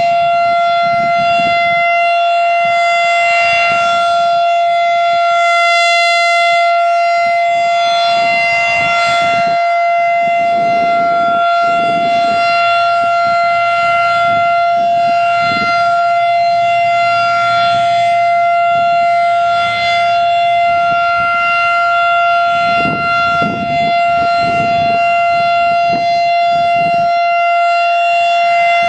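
Federal Signal 2001-DC electromechanical outdoor warning siren sounding a loud, steady tone at full speed during a routine test. Its pitch is held level throughout.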